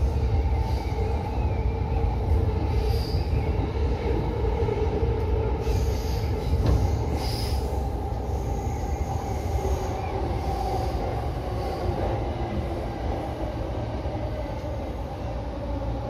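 E231-series electric commuter train running on the rails, heard from inside the driver's cab: a steady rumble of wheels on track with faint whining tones and short high wheel squeals. It gets slightly quieter over the last few seconds.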